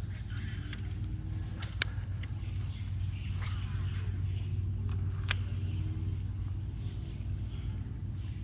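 A steady high insect drone with a constant low hum beneath it, broken by two sharp clicks, one about two seconds in and one about five seconds in.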